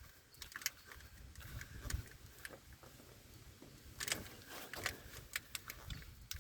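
Faint, irregular clicks and knocks of hands working a loosened spin-on oil filter off a truck engine, with the odd metallic tap.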